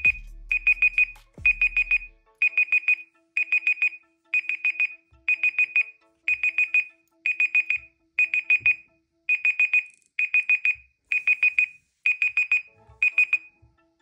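Ixion X245 phone's expired countdown timer alarm beeping: quick groups of about four high beeps, repeating about once a second, stopping near the end.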